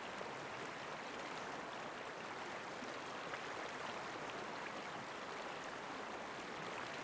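Steady rush of river rapids, a field recording of white water.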